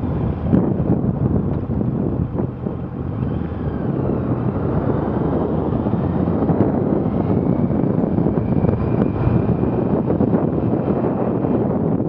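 Steady wind buffeting on an action camera's built-in microphone while a Honda CBR650 is ridden in traffic, with the motorcycle's inline-four engine running underneath at cruising speed.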